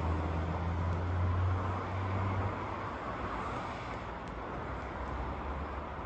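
Outdoor road-traffic noise: a steady low engine hum over a broad road-noise hiss, the hum fading about two and a half seconds in.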